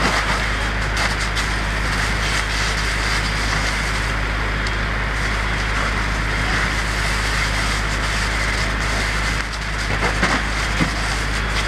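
A burning travel trailer and nearby vegetation, giving a steady rushing noise with a few sharp crackling pops near the end, over a constant low engine drone.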